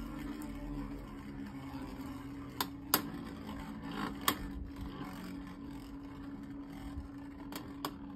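Two micro Beyblade spinning tops whirring around a clear plastic stadium, with a few sharp clacks as they hit each other or the stadium wall, the loudest about three seconds in and two in quick succession near the end.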